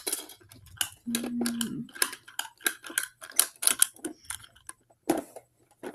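Plastic toy garbage truck being worked by hand: a quick, uneven run of clicks and clatter as the lift arm and a small plastic toy bin knock and rattle, with a brief low hum about a second in.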